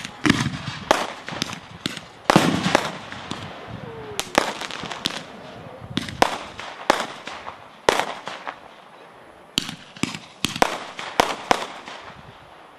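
Fireworks display: aerial shells bursting in sharp bangs at irregular intervals, about twenty in all, several trailing off in an echo. The loudest bang comes about two seconds in.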